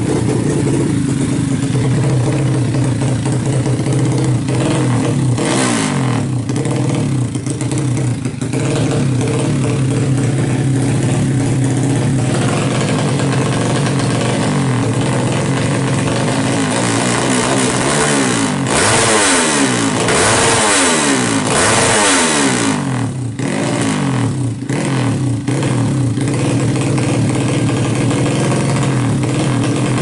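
Yamaha Jupiter Z single-cylinder four-stroke engine, bored up to 200cc, idling loud and steady. It is blipped about five seconds in, then revved up and down several times past the halfway point before settling back to idle.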